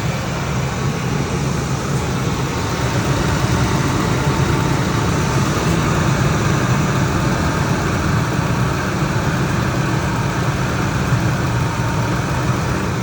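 2003 Ford Expedition's V8 idling steadily on a cold start, running smooth with no miss. The chirp that shows up at operating temperature is not yet there.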